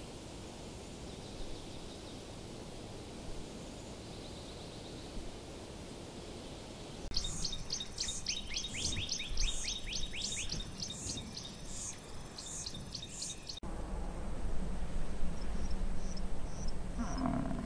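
A songbird singing a quick series of repeated sweeping whistled notes, starting about seven seconds in and cutting off abruptly, over a steady outdoor background. Before it there are only a few soft chirps, and after it a few faint high notes over a different background.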